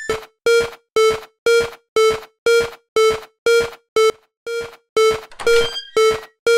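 Level crossing warning bell ringing its steady 'kan-kan' alarm, about two rings a second.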